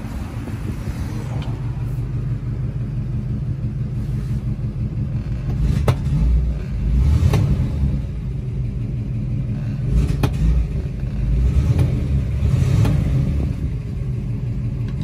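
The 1953 Oldsmobile 88's Rocket V8 running with a low rumble that swells louder twice, with a few sharp clicks.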